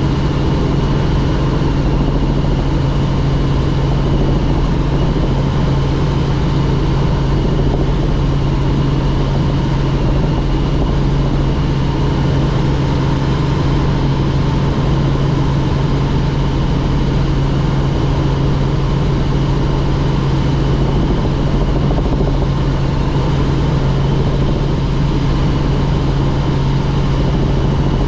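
Helicopter running steadily in flight or at hover: a constant engine and rotor drone with a strong low hum and a faint steady high whine.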